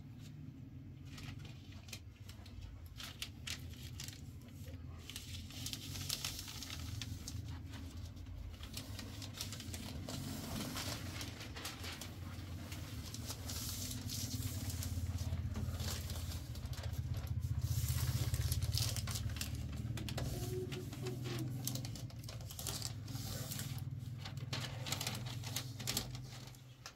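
Rustling and crackling, like material being handled, over a steady low rumble that swells to its loudest about two thirds of the way through and drops away near the end.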